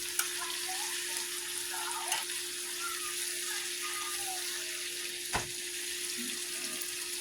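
Ribeye steaks sizzling and crackling in a frying pan, over a steady low hum. A few sharp clicks break through, the loudest about five seconds in.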